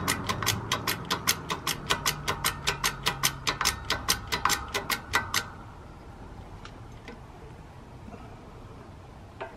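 Hydraulic shop press pump clicking fast and evenly, about six clicks a second, as the ram drives a bearing into the jackshaft; the clicking stops about five seconds in.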